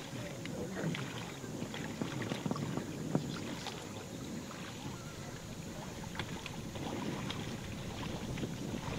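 Lake water sloshing and splashing irregularly, with a low steady outdoor rumble underneath.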